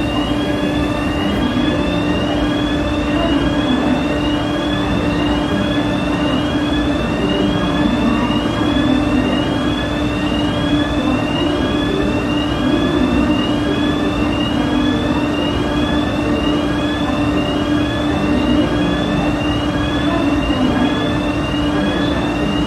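Fire alarm sounder giving a repeating rising sweep tone, about one sweep a second, during an alarm test, over a steady low hum.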